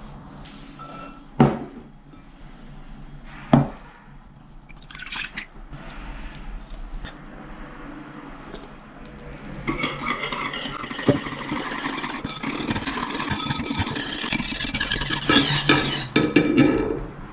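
Two sharp clinks of dishware set down on a wooden table, then milk poured into a metal pot and a wire whisk stirring black sesame latte powder into the milk, with loud scraping strokes near the end.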